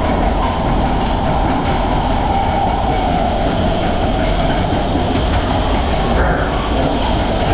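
Matterhorn Bobsleds roller-coaster sled running along its steel track, heard from on board: a loud, steady rumble of the wheels with faint repeated clicks.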